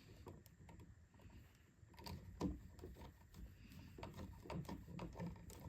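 Faint, scattered clicks and scrapes of electrical wires and a plastic wire nut being handled as the wire ends are lined up for splicing.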